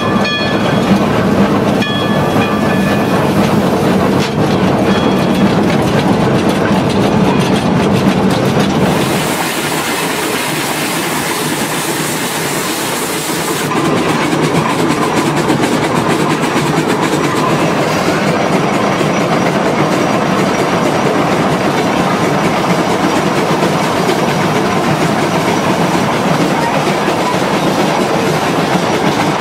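No. 6 Climax geared steam locomotive running on its train, a steady mechanical clatter of running gear and wheels on the rails. The sound shifts abruptly about nine and again about fourteen seconds in.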